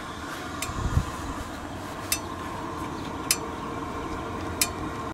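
Four sharp clicks about a second apart and one dull low thump about a second in, over a faint steady background hiss, with no engine running.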